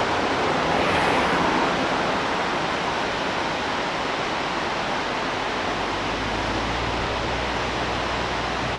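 Steady outdoor rushing noise, easing slightly, with a low rumble that grows in the last few seconds.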